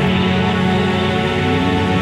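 Background music with sustained, held notes and a steady level.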